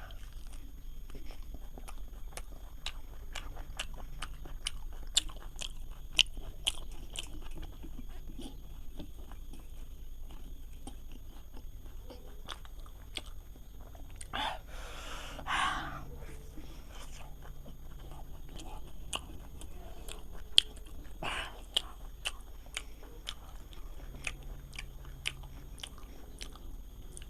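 A person eating close to the microphone: chewing with many small wet mouth clicks and smacks, and a few brief louder bites or slurps partway through.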